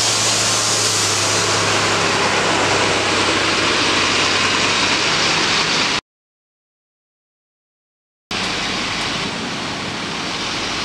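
Coach bus pulling out close by: a steady rush of engine and running noise with a low engine hum. The sound cuts out completely for about two seconds midway, then carries on a little quieter as the bus moves off.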